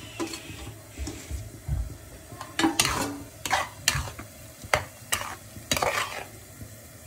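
A spoon stirring and scraping in a cooking pan: a run of sharp scraping strokes, several a second, through the second half.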